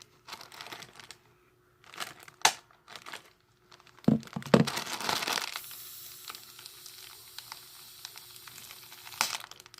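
Plastic bags crinkling and rustling as they are handled and stuffed, in irregular bursts, with the loudest stretch about four to five seconds in.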